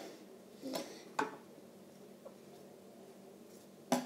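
A few light clicks and knocks from pieces of a hollow chocolate Easter egg being handled on a table, with one sharper click about a second in.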